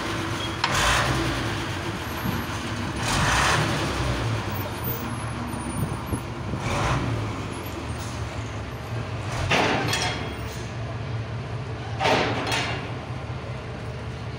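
Diesel engine of a Kato NK-250 truck crane running steadily while it lowers a load, with about five short, loud hisses every two to three seconds.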